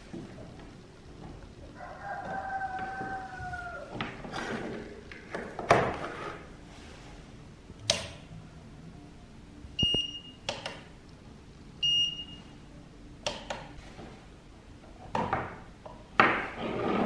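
Scattered knocks and clicks of objects being handled, with a held tone near the start that dips slightly at its end, and two short high electronic beeps about two seconds apart.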